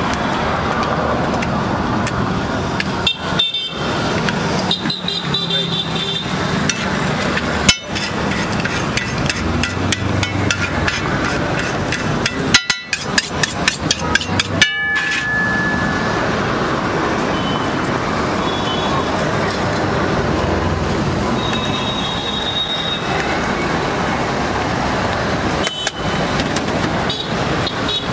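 Busy street traffic noise with a few short vehicle horn toots, and some quick metallic clinks of cooking utensils at a street-food griddle, with abrupt cuts in the sound.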